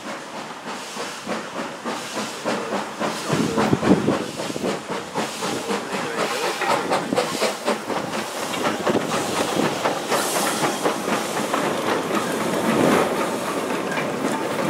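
Hudswell Clarke 0-6-0 saddle tank steam locomotive hauling a goods train past, with rhythmic exhaust beats and hissing steam from its cylinders. It gets louder as it comes closer. Near the end the goods wagons clatter by over the rail joints.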